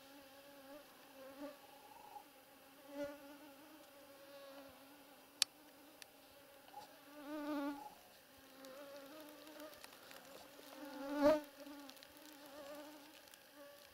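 Mosquitoes whining close to the microphone: a thin wavering drone that swells and fades as they fly near, loudest about eleven seconds in. A single sharp click about five seconds in.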